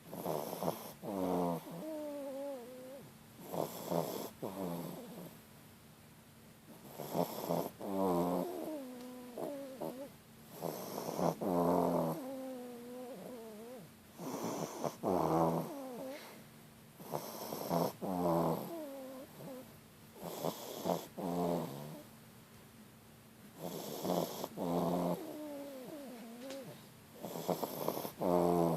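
French bulldog snoring, one snore on each breath about every three to four seconds, many of them trailing off into a wavering, whistle-like note.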